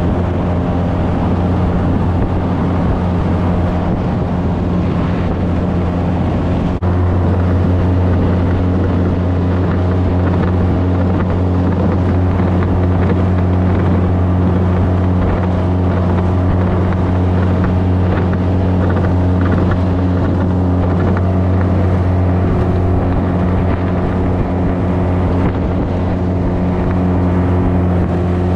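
Mercury 25 HP four-stroke Bigfoot outboard running steadily at cruising speed, driving an aluminium jon boat, with wind buffeting the microphone. A single sharp click about seven seconds in.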